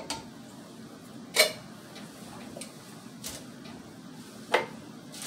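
A few sharp knocks and clinks of cans and kitchen utensils being handled and set down on a countertop, the loudest about a second and a half in and another about a second before the end.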